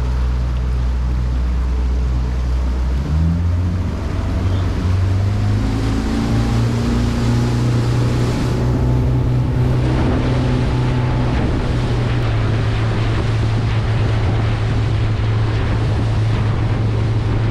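Mercury 75 outboard driving a small aluminium boat at speed. About three seconds in it revs up, its pitch rising for a couple of seconds before holding steady, over the rush of water off the hull and wind on the microphone.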